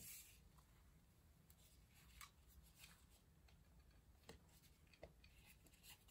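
Near silence, with faint scattered clicks and soft rustles of hair being wound and slid through a flat iron.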